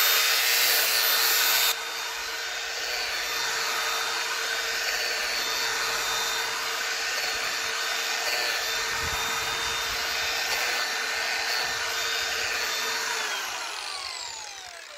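Angle grinder with a 240-grit sanding disc running at a steady whine as it sands the inside of an ash bowl, then switched off near the end, its pitch falling as it spins down.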